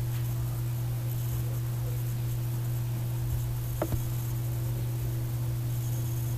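Steady low electrical hum with background hiss, broken by a short double click about four seconds in.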